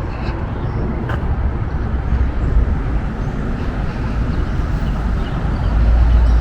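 Outdoor city ambience: steady low rumble of road traffic, growing louder near the end.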